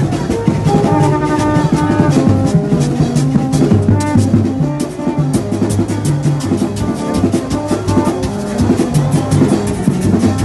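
Music with drums and percussion keeping a steady beat under short melodic notes.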